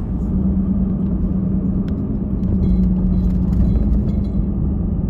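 Car driving at steady speed, heard inside the cabin: a constant low road-and-engine rumble with a steady hum.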